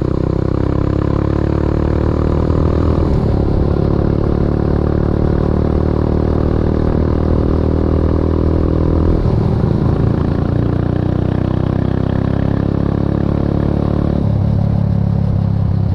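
Motorbike engine running under way, its pitch shifting a few times as the speed changes, with road and wind noise.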